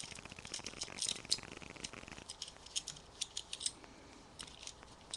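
A metal belt buckle being rubbed and wiped with polishing cloth: irregular scratchy rubs and small clicks.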